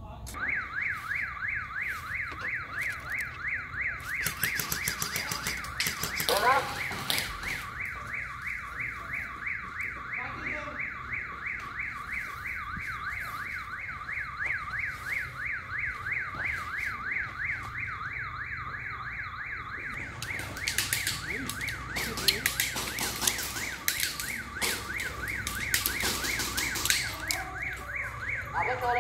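Electronic alarm siren warbling rapidly up and down, several sweeps a second, without a break. Runs of sharp clicks come through it about four seconds in and again from about twenty seconds on, in keeping with BB guns firing.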